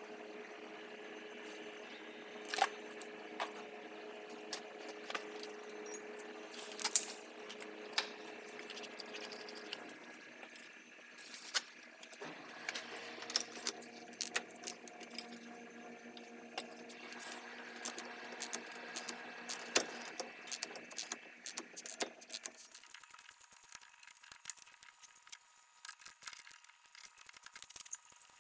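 Irregular metallic clicks and clinks of hand tools and brake parts being handled at a car's rear brake caliper, over a steady background hum that stops about three-quarters of the way through.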